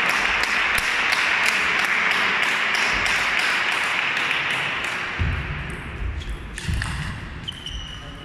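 Light ping-pong ball clicks, about four a second, over a broad rushing hall noise that fades away after about five seconds. A few low thuds follow near the end.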